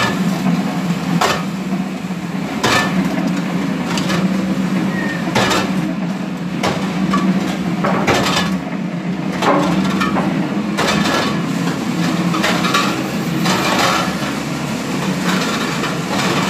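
Brick-making machine running: a steady motor hum with a sharp metallic knock about every second and a half.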